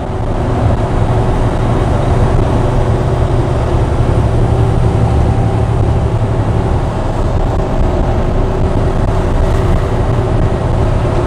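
Heavy truck driving, heard from inside the cab: a steady low engine and road drone with faint steady tones above it. The truck is loaded heavy.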